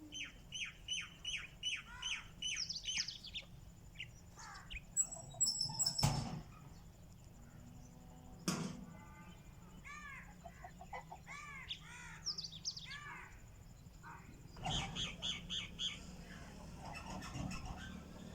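Small songbirds chirping in quick runs of short, downward-sliding notes, with a fast cluster of calls near the end. Two sharp knocks sound around the middle.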